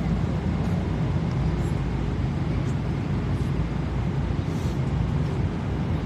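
Airliner cabin noise in flight: a steady low drone of the engines and airflow, picked up by a phone's microphone, with a few faint ticks.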